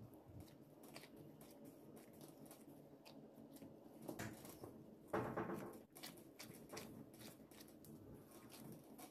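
Gloved hands punching down and kneading risen yeast dough in a bowl: faint soft squishing and patting, with one louder scuffing sound about five seconds in.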